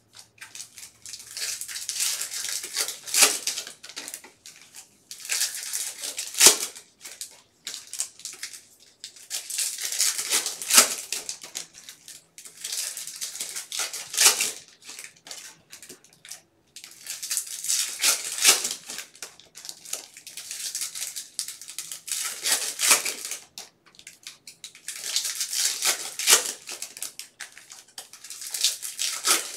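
Foil wrappers of Bowman baseball card packs crinkling and tearing as the packs are ripped open by hand. The noise comes in bursts every two to three seconds, with a few sharp snaps.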